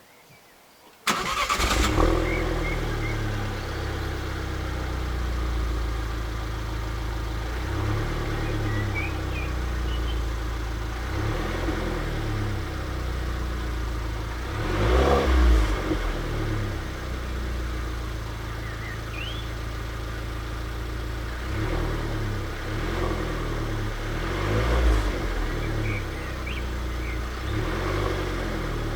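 Alfa Romeo MiTo Quadrifoglio Verde's 1.4 turbo four-cylinder starting from cold, then idling steadily, with a couple of brief swells in revs, one near the middle and one near the end. Faint bird chirps over the top.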